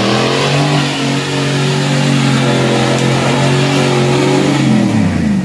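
Full-size SUV's engine revving hard under load as it drives through a deep mud hole. The revs climb over the first second, hold high and steady, then drop away near the end as the driver backs off the throttle.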